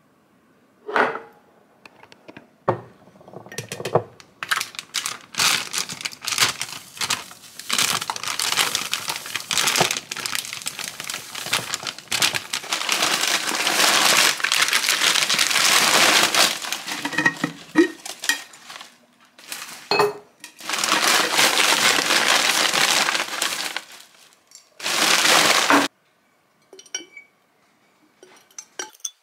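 Thin plastic bags crinkling and rustling as gloved hands handle them, in long, dense stretches with a short pause about two-thirds of the way through. A few separate knocks of glass jars and lids come in the first few seconds.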